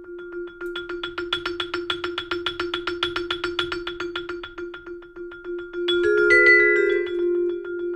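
Vibraphone played with yarn mallets while a second player's hands press on the metal bars: one note rings on, restruck in rapid even strokes of about seven a second. About six seconds in, a louder chord of several notes rings out over it.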